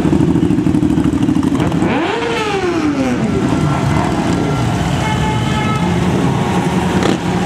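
Motorcycles riding past one after another, their engines running under light acceleration; about two seconds in one engine's pitch rises and then falls away as it goes by.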